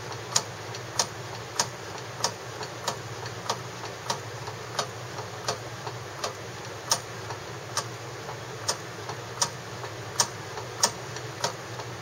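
Hand-turned rotary microtome clicking steadily, about three sharp clicks every two seconds with fainter ones between, as it cuts a paraffin block into a ribbon of sections.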